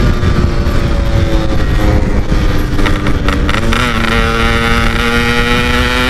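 Yamaha RX-King's two-stroke single-cylinder engine running hard at high revs on the move, its pitch easing slightly, dipping briefly about four seconds in, then slowly climbing again. Wind rushes over the microphone.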